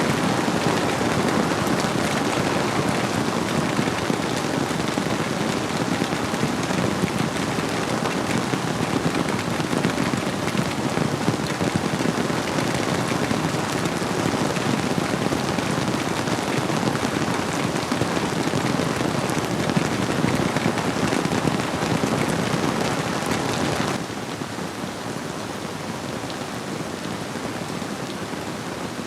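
Steady rainfall, an even dense hiss of drops with no single strikes standing out; the whole sound drops suddenly to a lower level near the end.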